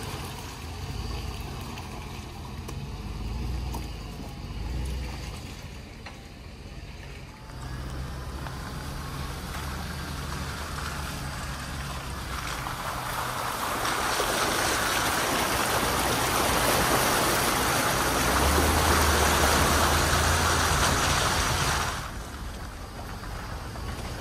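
Chevrolet Suburban driving slowly along a muddy trail, its engine a steady low rumble. From about halfway through, its tyres splash through muddy puddles with a loud, steady rush of water that cuts off shortly before the end.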